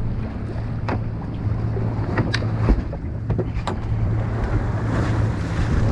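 Boat engine running with a steady low hum, with a few short sharp clicks and knocks from handling gear on deck.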